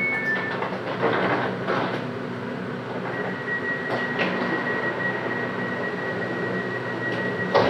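Inside a GTT Hitachi Rail tram: the car's steady low running hum, joined about three seconds in by a steady high-pitched whine, with a sharp click near the end.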